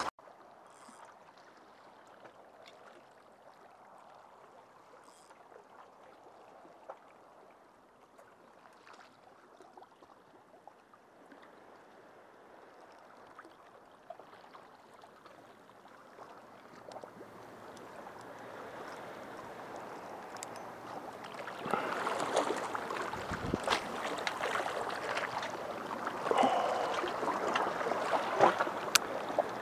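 Small waves lapping and gurgling at the water's edge, faint at first and growing louder in the second half, with scattered sharp clicks from a fishing rod and reel being handled.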